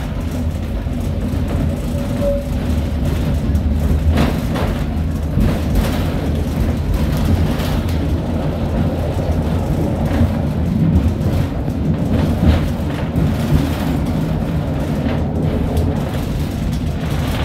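Interior ride noise of a V3A-93 EPC articulated tram running fast: a steady low rumble of steel wheels on rail with scattered knocks and rattles from the shaking car body.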